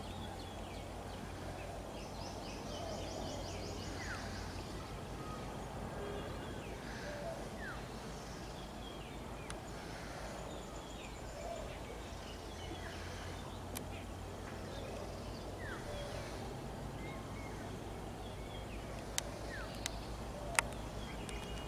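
Outdoor ambience of birds chirping in short falling calls, with a buzzy trill a few seconds in, over a steady low rumble; three sharp clicks near the end.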